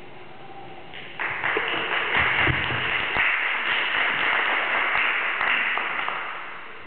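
Audience applauding: many hands clapping together, starting suddenly about a second in, holding for several seconds and dying away near the end.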